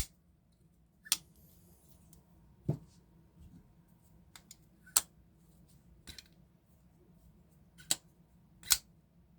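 Folding flipper knife being flicked open and closed over and over: sharp clicks as the blade snaps out and locks and as it is shut, about seven at uneven intervals.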